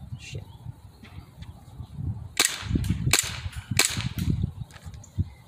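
Gas blowback airsoft pistol firing three sharp shots in quick succession, about 0.7 s apart, about halfway through.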